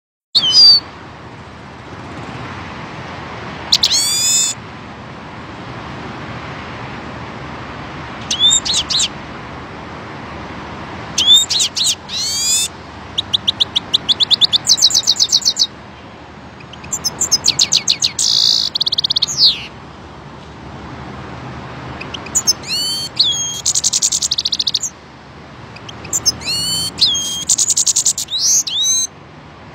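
European goldfinch singing: bursts of twittering phrases and fast trills, broken by short pauses, over a steady background hiss.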